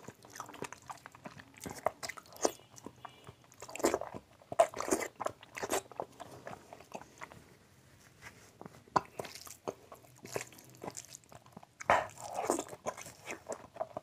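Close-miked mouth sounds of a man eating rice with mutton fat curry by hand: biting and chewing with many short wet clicks and smacks. They come in clusters, busiest about four to six seconds in and again near the end.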